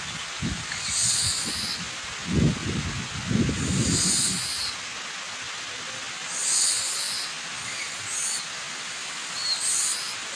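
Waterfall rushing steadily, with a bird giving short, high, harsh calls about five times. Bursts of low rumble come and go in the first half.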